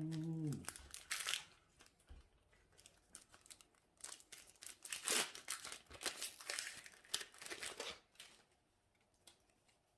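Foil booster pack wrapper being torn open and crinkled: a short burst of crackling about a second in, then a longer run of crinkling from about four to eight seconds in.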